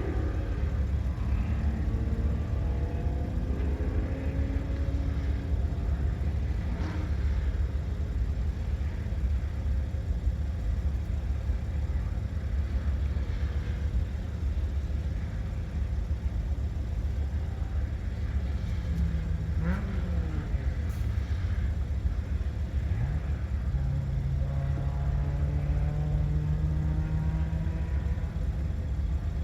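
Porsche 986 Boxster's flat-six engine driven hard at speed, its pitch climbing, dropping and holding as the gears change, over a heavy steady low rumble.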